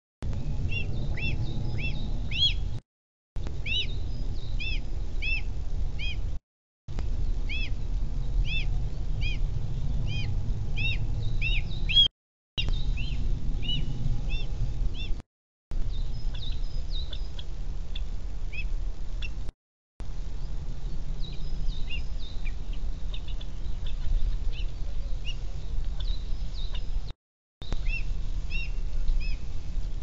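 Small songbirds chirping in quick runs of short, arching high notes over a steady low rumble. The sound cuts out to silence for a moment about six times.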